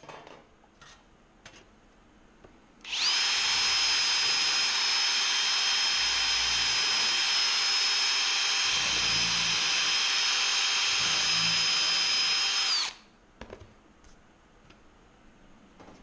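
Kobalt 24V cordless drill running at one steady speed for about ten seconds, drilling through a thin aluminum plate, with a high whine over the motor. A few light clicks and knocks come before and after the run.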